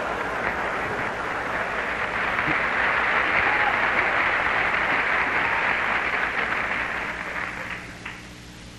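A lecture-hall audience applauding, the clapping thinning out and dying away about eight seconds in.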